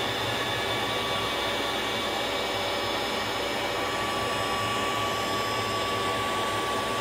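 Vacuum cleaner and a CNC router running together: steady airflow noise with a motor whine, a higher steady tone joining about four seconds in.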